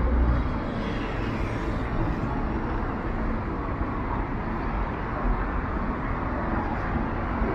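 Steady outdoor city background noise, with a low rumble of traffic under a general hum and no single distinct event.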